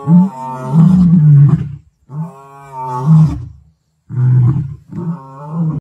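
Male lion roaring: two long, low roars followed by two shorter calls.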